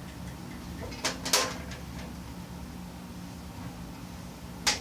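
Light clanks and clicks of the steel tool box's rail and bolt hardware being handled while a nut is started by hand: a short cluster of knocks about a second in and one sharp click near the end.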